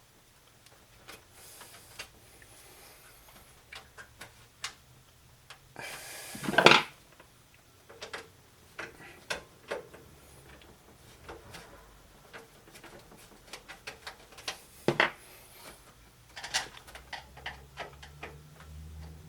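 Hands working inside a desktop PC case: scattered small clicks, taps and rubbing as cables and parts are handled, with two louder clunks, one about six and a half seconds in and one around fifteen seconds.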